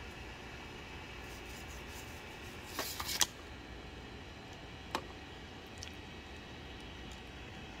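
Steady fan hum from a Sovol SV02 3D printer, with handling noise: a short cluster of sharp clicks about three seconds in and a single click about five seconds in, as the leveling paper is handled and the touchscreen is tapped.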